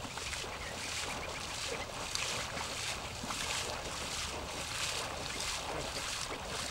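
Water sloshing and swishing in a steady rhythm, roughly one swish every three-quarters of a second, over a constant hiss.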